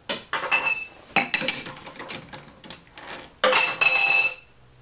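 Small steel threaded parts clinking and knocking against each other and the lathe as they are handled: a string of separate metallic clinks, each ringing briefly, the loudest cluster about three and a half seconds in.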